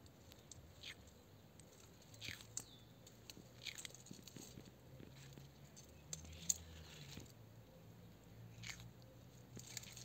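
A tortoise biting into and chewing a ripe strawberry: faint, soft, wet crunching clicks at irregular intervals, the sharpest about six and a half seconds in.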